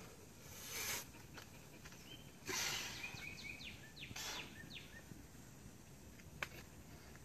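A bouldering climber's short, hissing exhalations, three of them, as he pulls through moves on an overhang. Small birds chirp briefly between the second and third breaths, and there is a single sharp tap about six and a half seconds in.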